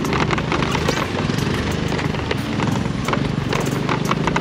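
Honda Dio scooter engine running at a steady pace while riding over a rough dirt road, with irregular knocks and rattles from the bumps.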